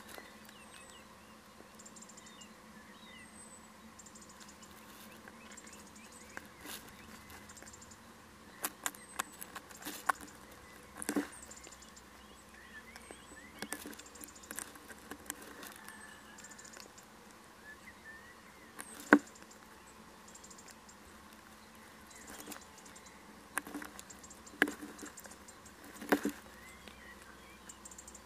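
Owl shifting about on the floor of a wooden nest box: irregular scratching and rustling with sharp clicks and knocks of claws and bill against the wood. A few of the knocks are much louder, the loudest about two-thirds of the way in.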